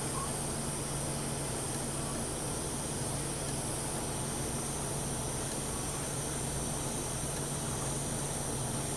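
TIG welding arc on the root pass of a 316 stainless steel pipe joint, a steady hiss with a low hum underneath.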